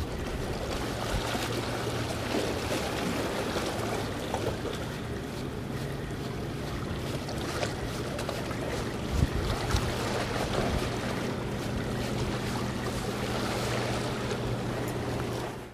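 Wind buffeting the microphone and sea water washing against concrete breakwater tetrapods, under a steady low engine hum from a boat on the water. A brief knock about nine seconds in.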